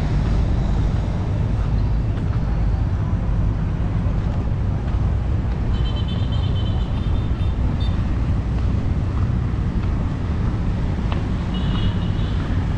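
Outdoor street ambience dominated by steady traffic rumble from passing vehicles. Brief high-pitched tones stand out twice, about six seconds in and near the end.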